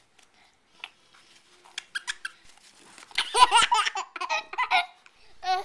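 A baby laughing: a few short squeaks, then a run of high-pitched giggles about halfway through, ending in a quick pulsed giggle.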